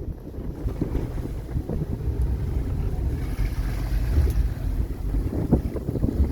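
Wind buffeting the microphone over the low rumble of a cabin cruiser's engines running at low speed on the water.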